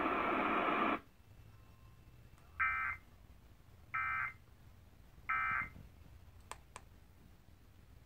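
Emergency Alert System end-of-message signal: three short bursts of digital data tones, each about a third of a second long and spaced about a second and a third apart, marking the end of the required monthly test. Louder broadcast audio cuts off abruptly about a second in, before the bursts, and two faint clicks follow them.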